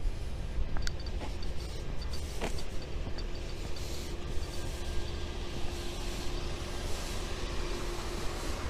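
Street ambience heard through a police body-worn camera's microphone as the wearer moves along a residential street: a steady low rumble with a few small handling clicks. A faint steady hum comes in about two and a half seconds in.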